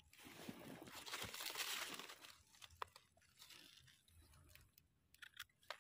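Faint rustling and crunching of wet leaf litter and soil as a mushroom is pulled up from the forest floor by hand. The noise fades after about two seconds, and a few small clicks follow near the end.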